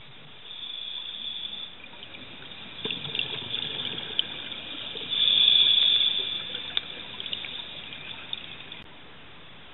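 Scuba diver's exhaled bubbles rushing from the regulator underwater, in several surges with a few small clicks. The loudest rush comes about halfway through, and the bubbling stops shortly before the end.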